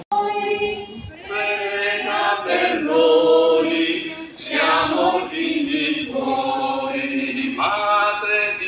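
A group of voices singing a hymn together in long, held notes.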